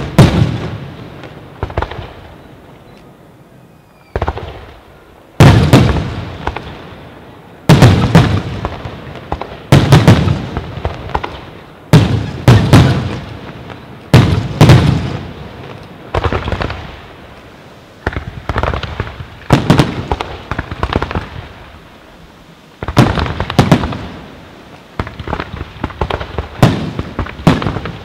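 Aerial firework shells bursting one after another, each a loud boom that trails off, about every one to two seconds. From a little after two-thirds of the way in, the booms give way to a quicker run of many smaller pops and crackles.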